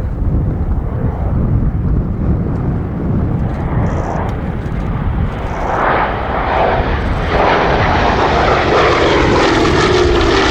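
Douglas A-26 Invader's twin Pratt & Whitney R-2800 radial engines as the aircraft flies past. The engine noise grows louder about six seconds in, and the engine note falls in pitch near the end as it passes.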